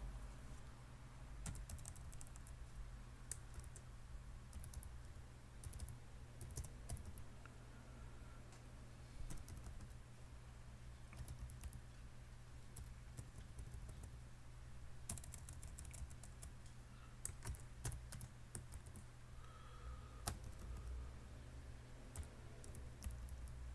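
Computer keyboard typing: faint keystrokes in short, irregular bursts with pauses between them, over a steady low hum.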